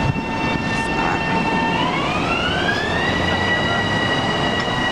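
Long Island Rail Road M7 electric train pulling out, its traction motor whine holding one pitch, then rising over about a second and levelling off as it picks up speed, over the rumble of the wheels on the rails.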